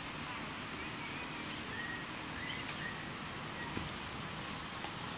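Outdoor forest ambience: a steady hiss with a thin, high, steady tone, a few short, faint chirps and a couple of faint clicks.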